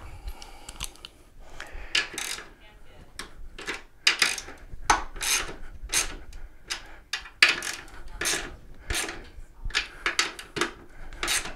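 Ratchet wrench working 13 mm bolts, a run of short rasping strokes at irregular intervals.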